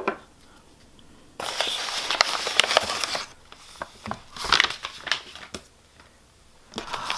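Paper wrapping crinkling as a package is handled and unwrapped: a long stretch of rustling about a second and a half in, then shorter crinkles.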